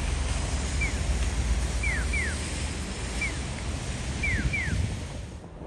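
Wind rushing on the microphone over the low rumble of a ferry under way and the sea, with short high falling chirps in a regular pattern of one, then two, about every two and a half seconds. It all drops away just before the end.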